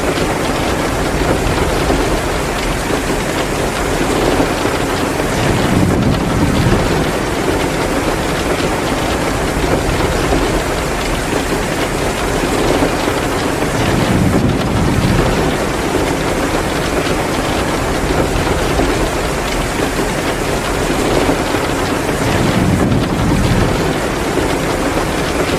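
Heavy rain pouring steadily, a dense, even hiss. A deeper rumbling swell rises and fades three times, roughly every eight or nine seconds.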